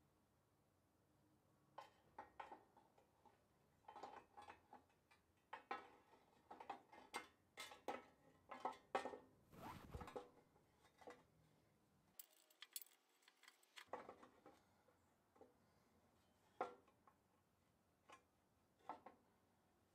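Metal parts of a 1938 Craftsman scroll saw crank case clinking and knocking as the crank-and-shaft assembly is worked into its housing by hand: scattered light taps and clicks, with a short scrape just before halfway.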